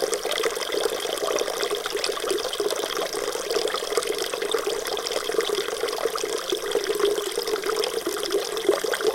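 Water running steadily, an even splashing rush with no breaks.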